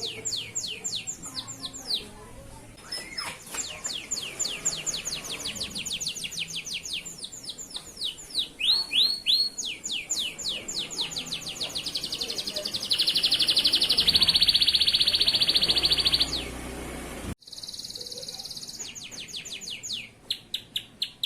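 Male canary singing: long runs of fast, repeated downward-sweeping notes, then a long, steady, high trill a little past halfway. The song cuts off abruptly near the end and picks up again.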